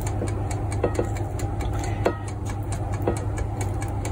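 Air fryer's fan running with a steady low hum, with a few faint clicks from the metal basket being handled.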